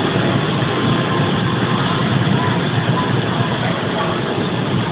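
Tractor-trailer driving through deep floodwater: its engine running steadily under a continuous wash of noise.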